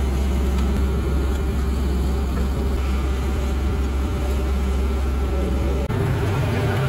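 Sumitomo HA45W asphalt finisher's diesel engine running steadily with a deep low hum. About six seconds in, the engine note steps up to a higher pitch.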